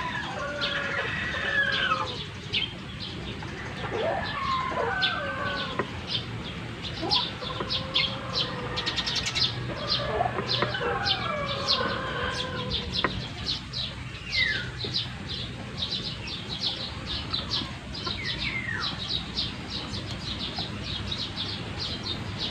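Chickens clucking and calling in short, bending calls through the first half, with a quick run of short high ticks from about six seconds in.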